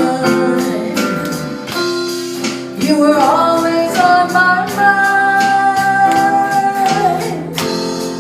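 A pop ballad played by a small band with a female lead vocal, electric bass, keyboard, drums and rhythm guitar, with regular cymbal strokes. About three seconds in, a long note slides up and is held for around four seconds.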